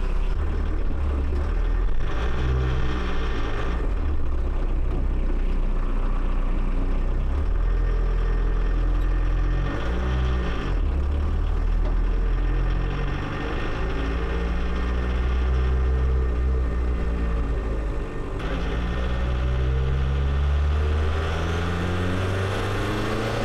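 Mk1 VW Rabbit turbodiesel engine heard from inside the cabin while driving, its speed rising and falling a few times and climbing as it accelerates near the end.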